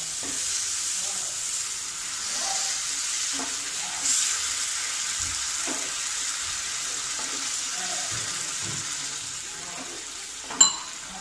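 Masala paste sizzling in a nonstick frying pan as water goes in, with a spatula scraping and stirring it into a thin gravy. A single sharp click near the end.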